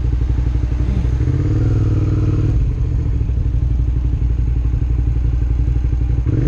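Motorcycle engine running at low speed, its firing pulses chugging steadily; an engine note swells briefly about a second and a half in.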